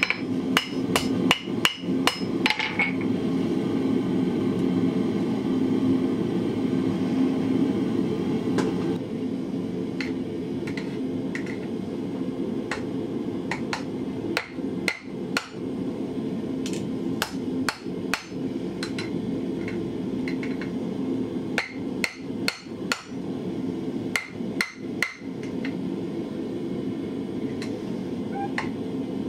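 A blacksmith's hammer strikes red-hot steel on an anvil, each blow ringing. A quick run of blows lands over the anvil's hole on the punched eye of a bottle opener. After a pause of several seconds come irregular, spaced blows on the anvil horn, knocking the corners off. A steady rush of the gas forge runs underneath.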